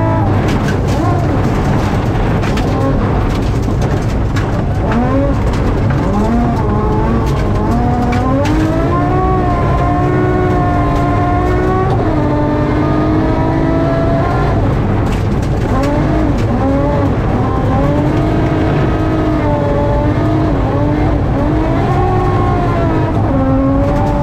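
BMW M3 rally car's engine at full stage pace, heard from inside the cabin: the revs climb and then drop sharply again and again with each gear change, with occasional sharp knocks.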